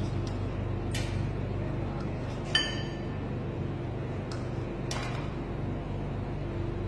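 Steady low background hum with a few light clicks, and one short ringing clink, like glass being tapped, about two and a half seconds in.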